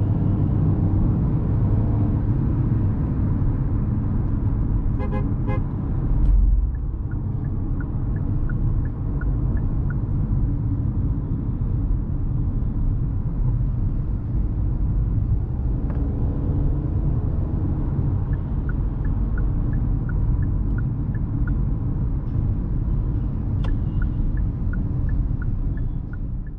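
Inside the cabin of a Hyundai Venue, its 1.0-litre turbo-petrol three-cylinder with dual-clutch gearbox cruising in city traffic: a steady engine and road rumble. The turn-signal indicator ticks evenly in several stretches, and there is a brief thump about six seconds in.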